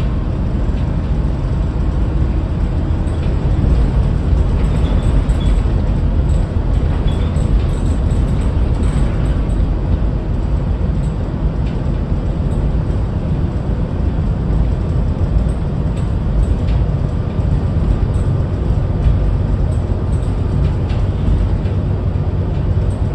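Steady low rumble of road and engine noise from a moving vehicle, even and unbroken throughout.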